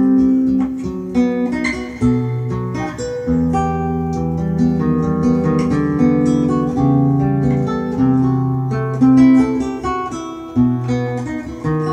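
Recorded acoustic guitar music played back over a hi-fi system's loudspeakers: a run of plucked notes over held bass notes, playing without a break.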